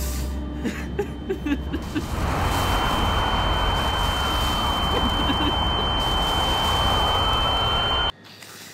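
Non-diegetic film sound design: a loud, dense rush of noise swells in about two seconds in, with a steady high-pitched ringing tone over it. It cuts off abruptly near the end.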